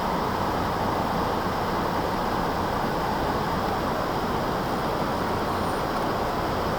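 Steady rushing of river water pouring over a dam, an even, unbroken noise.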